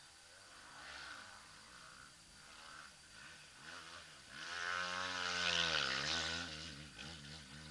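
An engine passing by: it swells from about four seconds in to its loudest near six seconds, with a sweeping change in tone as it goes past, then fades.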